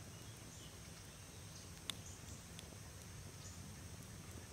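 Faint lakeside dawn ambience: a steady high drone of insects with a few short, faint bird chirps over a low rumble, and one sharp click about two seconds in.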